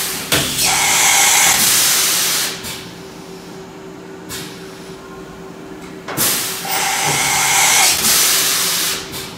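Yama Seiki BM-850 vertical machining center making two automatic tool changes, at the start and about six seconds in: each time the tool-changer arm clunks into place, followed by a loud hiss lasting about two and a half seconds. A steady machine hum runs underneath.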